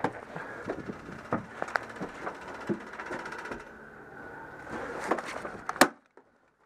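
Irregular sharp clicks and knocks of an airsoft skirmish: single airsoft shots and BB hits with some gear clatter, the loudest crack just before the sound cuts out to silence near the end.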